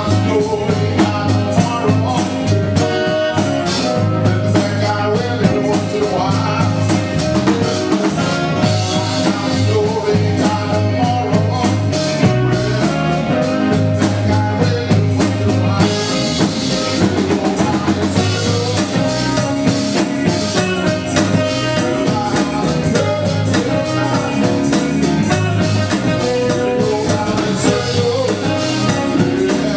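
A live cover band playing a song with a steady beat on the drum kit and voices singing.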